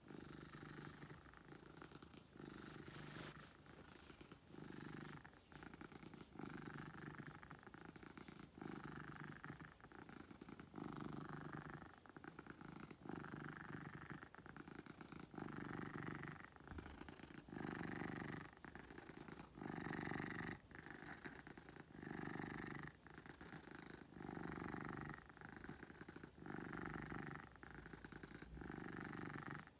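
Domestic cat purring while being stroked, pulsing in a steady rhythm of about one swell per second with its breathing, a little louder in the second half.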